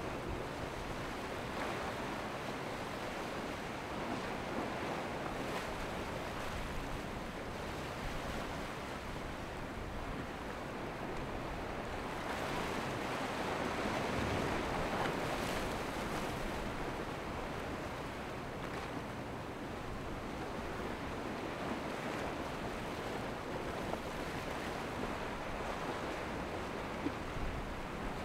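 Waves breaking and washing against a rock jetty, with wind buffeting the microphone: a steady rush that swells louder about halfway through.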